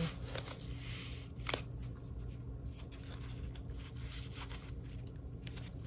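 Small crackles and clicks of a protective wrapping being picked at and peeled from a headset's microphone, with one sharper click about a second and a half in.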